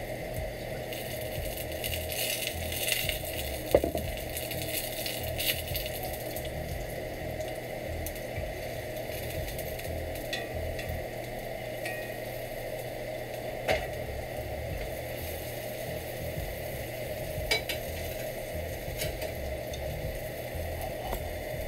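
Trumpet mushroom steaks sizzling steadily in oil in a cast iron skillet. A few sharp clinks of metal tongs and cookware stand out against the sizzle.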